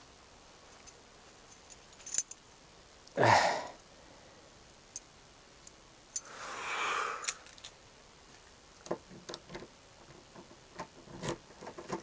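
Scattered clicks and light jangling of small handled objects, with a short, loud whoosh about three seconds in and a longer, softer whoosh around six to seven seconds.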